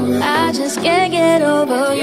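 Music: a woman singing a gliding melodic line over a soft electronic R&B backing with a held bass note.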